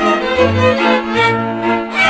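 Transylvanian (Mezőség) village string band playing a folk tune: several fiddles on the melody over kontra chord violas and a bowed double bass, the bass notes coming in short held strokes about every half second.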